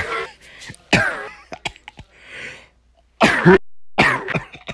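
A person coughing hard, about four harsh, voiced coughs, the loudest about three seconds in: a performed sick cough.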